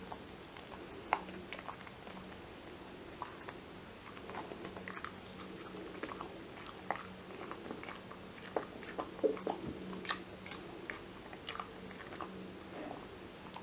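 A Kai Ken dog slowly chewing a Purina Dentalife dental chew stick: irregular gnawing with scattered sharp crunches and clicks of teeth, a few louder ones about a second in and around nine to ten seconds.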